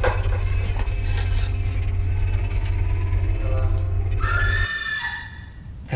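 Thriller sound design: a deep steady rumble cut through by a few sharp hits in the first second and a half. Near the end a high shriek rises over it, and the rumble cuts off suddenly.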